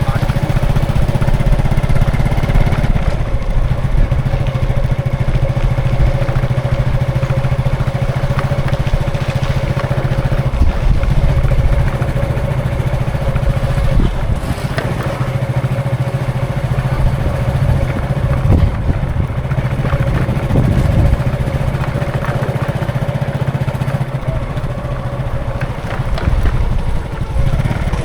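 Road traffic with vehicle engines running: a deep, steady engine rumble with motorcycle-like engine sound and a steady hum.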